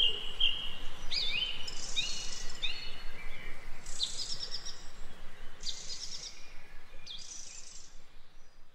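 Songbirds singing: a string of short, high chirping phrases about every second, over faint background hiss, the whole recording fading out gradually.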